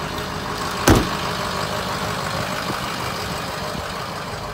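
Ford F-550's 6.0-litre V8 turbo diesel idling steadily, with a single loud thump about a second in.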